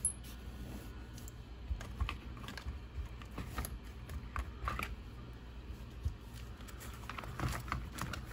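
Scattered light clicks and taps of small RC car parts being handled on a workbench, irregular and at no steady rhythm, over a steady low hum.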